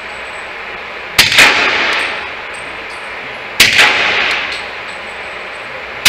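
Shots from a suppressed EAA Witness pistol firing subsonic 200-grain .40-calibre loads: one about a second in and another about two and a half seconds later, with a third starting right at the end. Each shot is a sharp report with a second peak just after it and an echoing tail of the indoor range that dies away over about a second.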